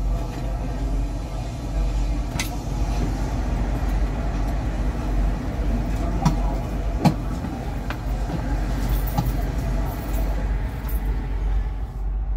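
Semi-truck diesel engine idling, a steady low rumble heard from inside the cab, with a few light clicks.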